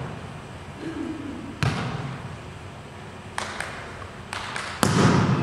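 A volleyball being struck and bouncing in an echoing gym hall: a handful of sharp slaps and thuds, the loudest near the end, each trailing off in the hall's reverberation.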